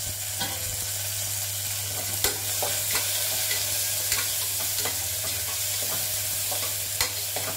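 Onions and chopped tomatoes sizzling in hot oil in an aluminium pressure cooker, stirred with a spatula that clicks and scrapes against the pot now and then.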